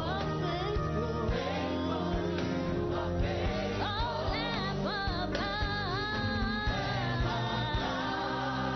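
Gospel song with a singing voice over a band, with guitar and a steady beat.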